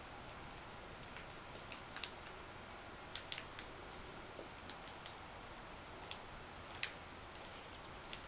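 Faint, irregular light clicks and ticks, a dozen or so scattered through, from Persian kittens' claws and paws on a cardboard play cube and toys, over a steady faint room hiss.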